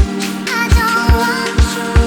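Electronic music with a steady kick-drum beat, held chords and a sliding melody line.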